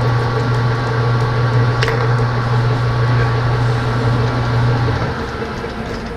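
Metal lathe running with a steady hum, its motor stopping about five seconds in, with one sharp click about two seconds in.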